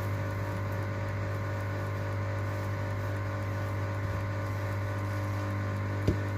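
Steady electrical hum made of many even tones, unchanging throughout, with one brief click near the end.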